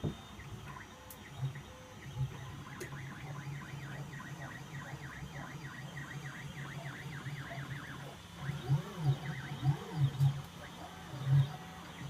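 3D printer's stepper motors whining in quick rising and falling tones as the print head moves. In the last few seconds a lower hum swells and fades in repeated pulses.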